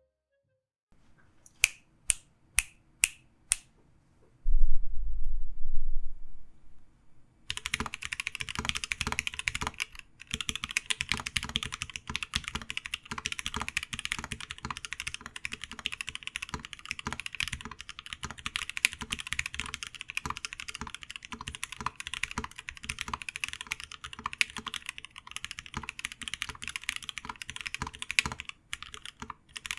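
Typing on an ION x Rama Works Zenith custom mechanical keyboard with lubed Gateron Black Ink v2 switches and a PVD-coated brass plate. Five separate keystrokes come first, then a loud low rumble for about two seconds, and from about seven seconds in, fast continuous typing.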